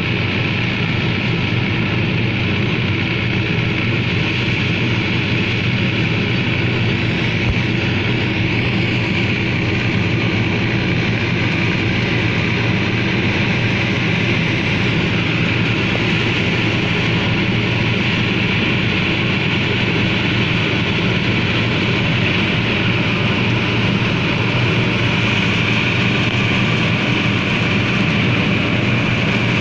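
Fiat 640 tractor's diesel engine running steadily under load, driving a wheat-straw chopper, with the continuous rushing hiss of the chopper cutting stubble and blowing chopped straw into the trolley.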